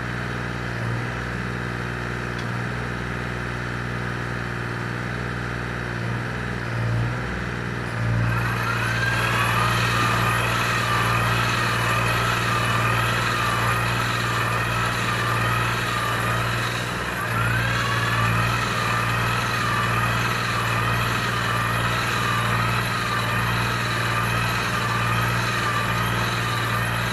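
Tractor-driven tree shaker running: a steady engine hum that grows louder about eight seconds in, when a whine rises and then wavers quickly up and down while the machine shakes, rising again about halfway through.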